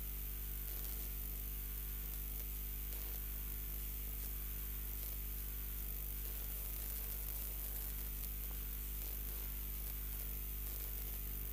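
Steady electrical mains hum and static hiss in the live-stream audio line, with no other sound standing out.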